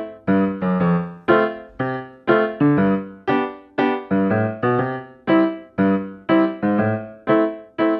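Background piano music: notes and chords struck at an even, unhurried pace, about two to three a second, each fading away before the next.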